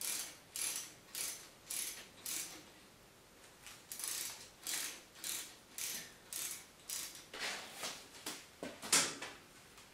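Ratchet wrench worked in repeated short strokes, a rasping click on each swing about twice a second, pausing about two and a half seconds in, with the loudest stroke near the end. It is undoing the engine's oil drain bolt.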